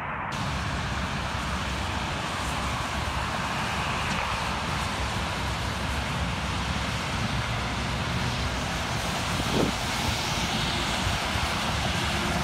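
Steady rushing noise of a distant jet airliner landing, mixed with passing cars. There is one brief thump about ten seconds in.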